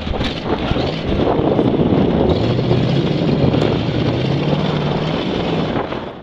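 Mud-covered Chevy pickup's engine revving as it drives through deep mud, its tyres churning mud. The engine note climbs slowly from about two seconds in and falls away near the end.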